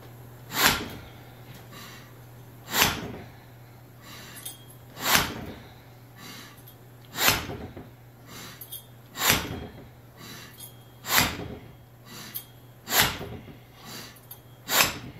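John Deere hydraulic cylinder's rod jerked outward hard again and again, giving eight heavy metal knocks about every two seconds as the piston is slammed against the gland like a slide hammer to pull the gland out of the barrel.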